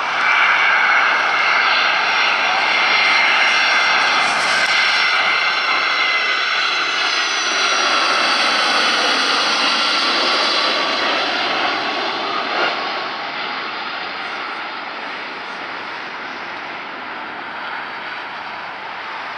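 Boeing 757 jet engines on landing approach: a loud roar with several high whining tones that slide slightly lower as the aircraft passes. The sound fades gradually over the last several seconds.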